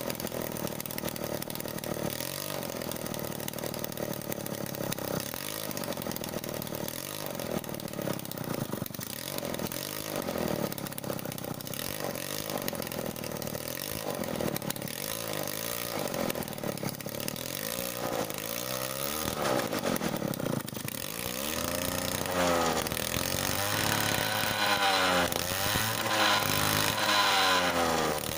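Bajaj Sunny scooter's two-stroke engine running on its stand, revved up and down again and again with the throttle. The revs get higher and louder over the last six seconds or so.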